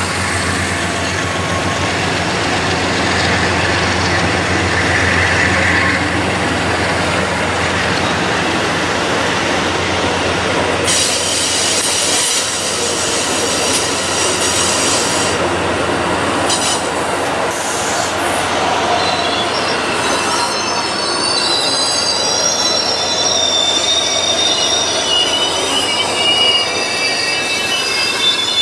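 Amtrak Superliner bi-level passenger cars rolling past with a steady rumble of wheels on rail. High-pitched wheel squeal sets in about ten seconds in, and in the second half several squeal tones waver up and down.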